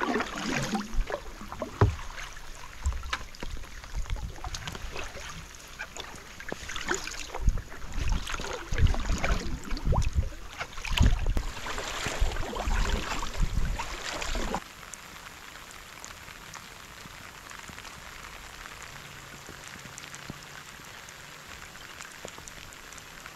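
Kayak paddle strokes splashing in the water with knocks close to the microphone, under a heavy rain. The paddling stops about fifteen seconds in, leaving the steady hiss of rain falling on the river.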